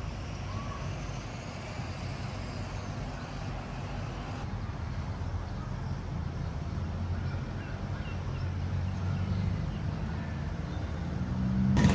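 Low, steady rumble of distant town traffic, growing slightly louder toward the end.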